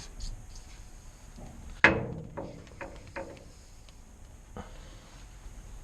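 A sharp metallic clink with a short ring about two seconds in, then a few lighter clinks, as small metal parts and tools are handled while swapping a dryer drum wheel onto its stud.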